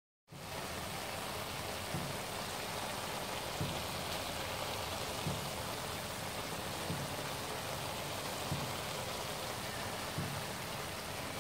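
Beef and broccoli stir-fry sizzling in a wok, a steady hiss that comes in after a brief gap at the start. Under it runs a faint low thump about every second and a half.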